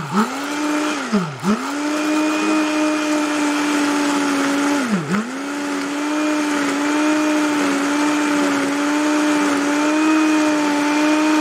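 Immersion blender running in a saucepan of hot cream and melted parmesan, whipping it into a frothy emulsion. Its motor hum dips sharply in pitch and recovers about a second and a half in and again about five seconds in, then holds steady.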